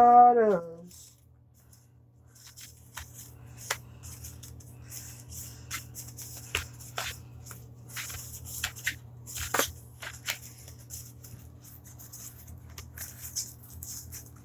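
Trading cards (Magic: The Gathering) being handled and shuffled: irregular quick flicks, slides and taps of the cards, over a steady low hum.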